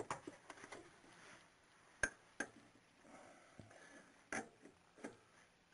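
A handful of separate sharp clicks and knocks from hand work on the engine's crankshaft pulley as it is fitted, the loudest about two seconds in and again a little after four seconds.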